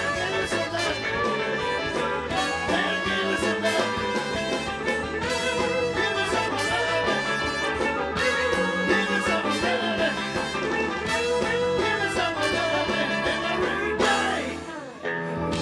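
Live band with a horn section of trumpet and trombone playing an upbeat soul-rock number. About fourteen seconds in the band plays a falling glide and the sound dips briefly, then a new held chord comes in right at the end.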